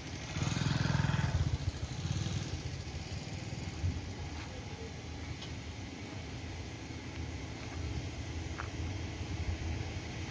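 A vehicle engine running steadily at idle. A louder vehicle sound swells up in the first second or two and fades.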